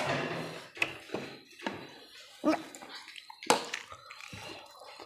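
Eating sounds: about five short, sharp clicks and smacks, with a faint voice at the start.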